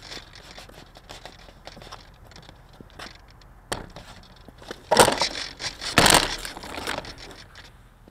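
Irregular crackling and rustling close to the microphone, like handling or rubbing noise, with louder scraping spells about five and six seconds in.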